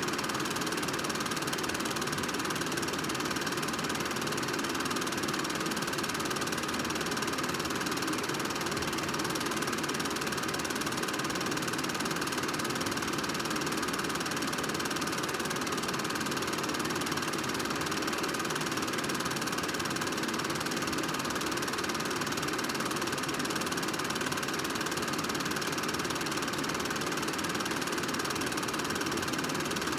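Film projector running steadily: a continuous mechanical whir with a fine rapid clatter, unchanging throughout.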